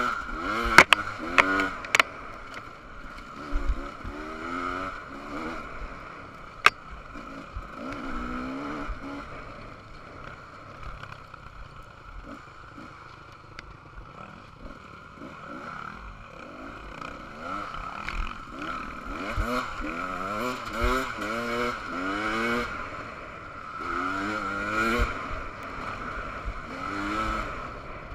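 KTM 300 two-stroke dirt bike engine revving up and dropping back over and over as it rides a rough trail, with a few sharp knocks in the first couple of seconds and one about seven seconds in.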